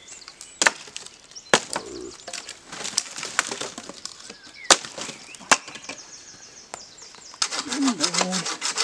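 Dry dead branches being snapped by hand for firewood: sharp cracks, about seven of them over the first six seconds, with rustling of twigs between. Near the end a fast, even run of scraping strokes starts.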